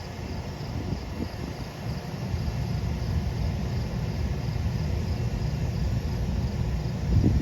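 Low steady rumble of an Amtrak train at the station, with crickets chirping faintly behind it; a brief louder low surge comes near the end.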